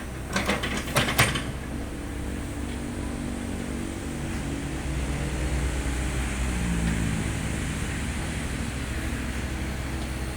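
An excavator's diesel engine running steadily, with a quick run of sharp knocks about half a second to a second and a half in.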